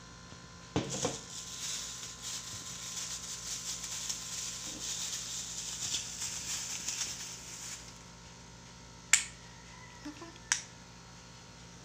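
Small plastic bag crinkling for several seconds as a bottle pourer spout is unwrapped, followed by two sharp clicks near the end as the spout is handled.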